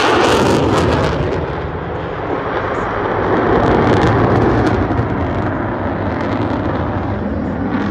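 F-35 fighter jet's single turbofan engine at high power as the jet climbs away overhead: a loud, steady jet roar with a rough crackle, strongest near the start and again about four seconds in.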